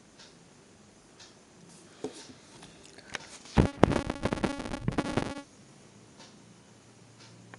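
A short, loud burst of electronic music with a quick beat, lasting under two seconds, about three and a half seconds in. Faint ticking about once a second sounds before and after it.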